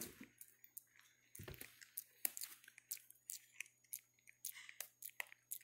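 Faint, irregular clicks, crackles and rustles close to the microphone as pet macaque monkeys scramble over and handle a person, with a couple of louder knocks near the start.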